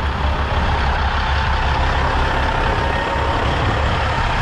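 Diesel semi truck running, a steady low engine sound with a faint, steady high tone above it.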